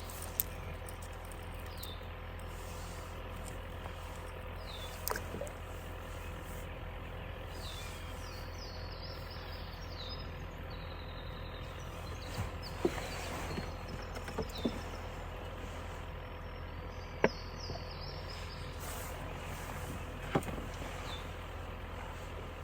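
Outdoor lake ambience: a steady low rumble, with birds chirping in short runs of high falling notes several times, and a few sharp knocks scattered through.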